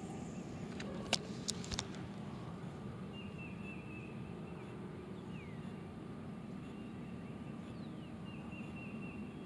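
A spinning reel clicking sharply a few times about a second in as the bail is shut and the handle turned after a cast. Under it runs a steady low background rumble, with faint high bird calls twice later on.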